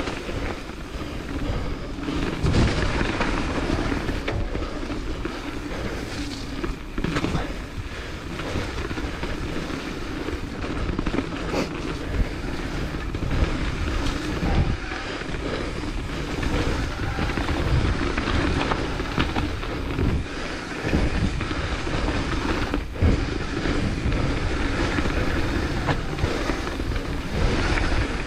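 Hardtail mountain bike descending a rough dirt trail at speed: tyres rolling and skidding over dirt and roots, with the frame and chain rattling and knocking over every bump, over steady rushing noise.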